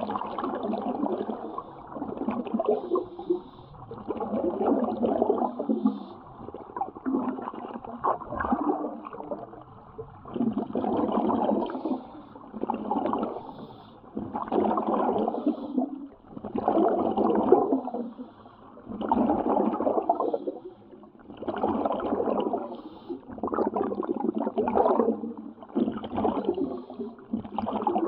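Air bubbling out of an air-fed underwater walking helmet, heard underwater: a gurgling rush that swells and fades every two seconds or so.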